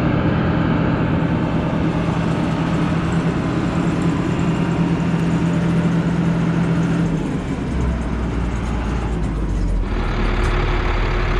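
Loaded grain truck's engine running steadily as it is driven. Its note drops about seven seconds in and changes again near the end, as if slowing or shifting.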